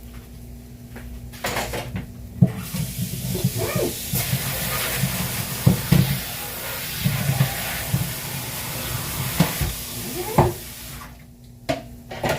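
Kitchen tap running water for about eight seconds, turned on a couple of seconds in and off near the end, with a few knocks of dishes or utensils.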